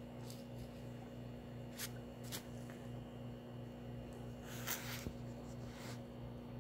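Faint steady mechanical hum with a slight pulse, broken by a few short rustles and clicks from the phone being handled. The loudest rustle comes about three quarters of the way through.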